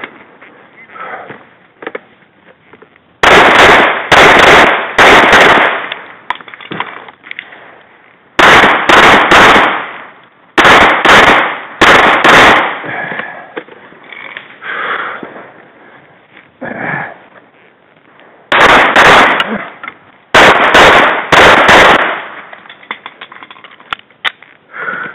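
Handgun fired in quick strings of two to four shots, about a dozen and a half shots in all, with pauses of a few seconds between strings: a practical-pistol course of fire being shot.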